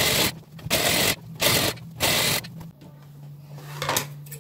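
Sewing machine with a gather foot running in four short bursts of about half a second each, over a steady low hum.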